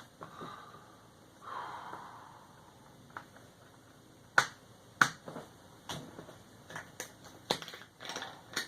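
Sharp, irregular small clicks and taps of screws and a small screwdriver as a MacBook Pro's bottom case is screwed back on, about half a dozen in the second half, with a soft rustle about a second and a half in.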